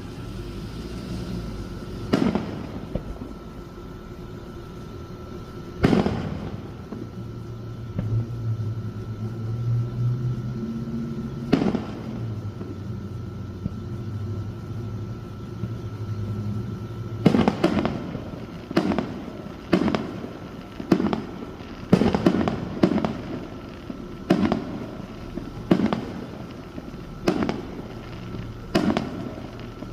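Fireworks shells bursting: three widely spaced booms in the first half, then a faster run of bangs about one a second through the second half, each trailing off in an echo.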